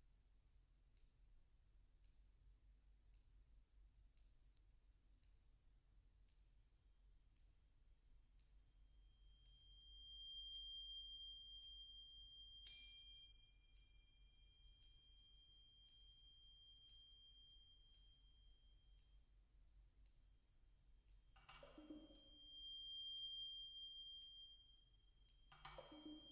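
Bell-like strikes on high-pitched metal percussion at an even pulse of about one a second, each ringing and fading. A steady high ringing tone holds through the middle, one strike about halfway is louder, and soft lower knocks come in near the end.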